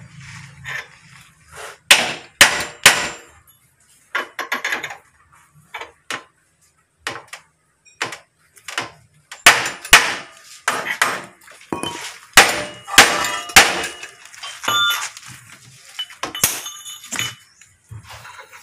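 Hand hammer striking steel rivets on a truck chassis rail: a long string of irregular, sharp metal-on-metal clanks, some ringing briefly.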